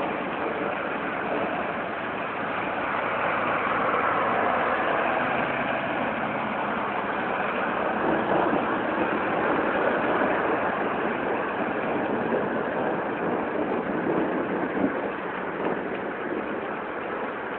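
Steady rain falling, an even hiss with no separate drops or claps standing out.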